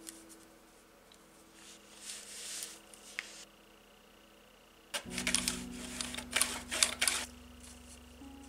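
Small thin sheet-metal model parts and tools handled by hand, with a run of light, rapid clicks and taps about halfway through, over faint background music.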